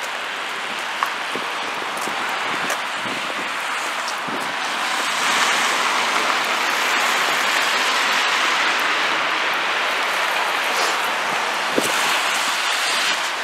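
Street traffic on a wet, slushy road: a steady hiss of tyres on wet asphalt that swells from about five seconds in as cars go by. Two short clicks, one near the start and one near the end.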